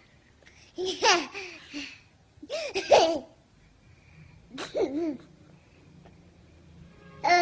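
Short bursts of high-pitched laughter, four of them about two seconds apart, each with a pitch that swoops up and down.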